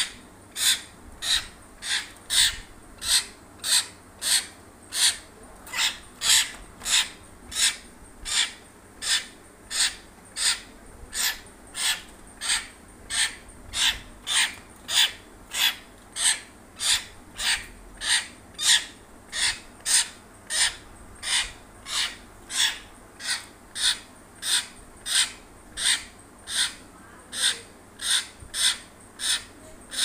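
Caged hill myna giving a short, harsh, rasping call over and over, evenly spaced at a little under two calls a second.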